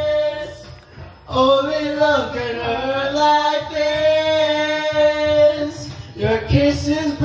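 Karaoke singing: a man and a woman sing into handheld microphones, holding long notes over the machine's music. Their singing drops away briefly about a second in, then picks up again.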